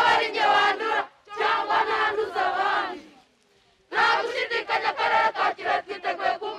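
A group of young people chanting and shouting in unison: two loud chanted phrases, a pause of about a second, then a quick run of short rhythmic chanted syllables.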